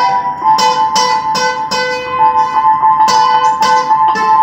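Acoustic guitar strummed in a steady rhythm together with an electronic keyboard holding sustained notes; an instrumental duet with no singing.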